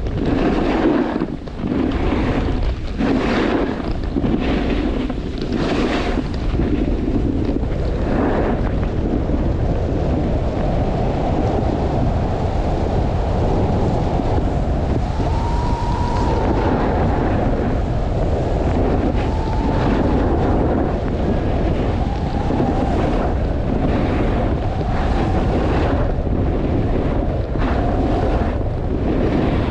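Wind buffeting the microphone during a fast run down a snowy slope, a loud steady rush with a low rumble. Repeated hissing surges in the first eight seconds or so, typical of edges carving and scraping through snow on turns.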